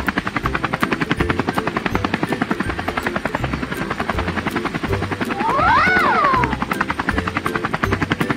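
Cartoon helicopter sound effect: a rapid, steady rotor chop. About six seconds in, a whistle slides up and back down.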